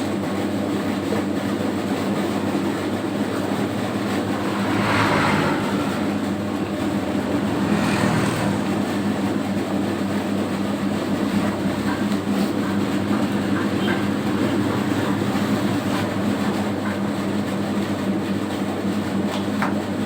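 Homemade 3 kg dough mixer running, its electric motor and drive giving a steady hum. There are two brief rushing, scraping swells at about five and eight seconds in.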